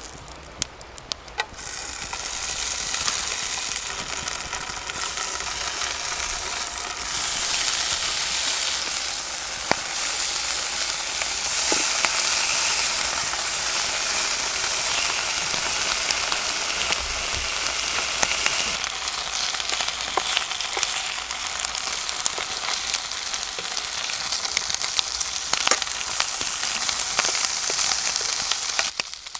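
Food sizzling steadily in a hot frying pan, with many small sharp pops and crackles. The sizzle sets in about a second and a half in.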